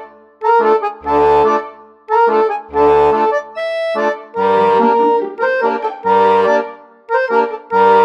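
Instrumental background music with a steady, bouncy beat: a melody over chords and bass notes that strike about once a second.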